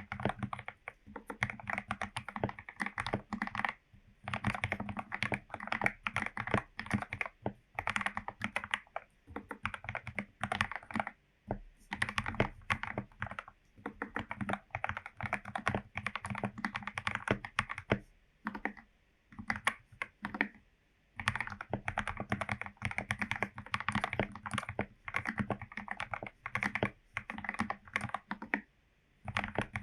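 Typing on a Royal Kludge RK84 mechanical keyboard fitted with lubed Gateron Yellow linear switches, its case foam- and tape-modded: a fast, continuous run of keystrokes broken by a few short pauses.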